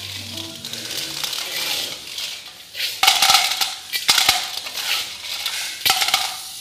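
Metal spoons scraping and knocking against shallow pans as if frying: a hissing scrape at first, then from about three seconds in a run of louder clanks and scrapes.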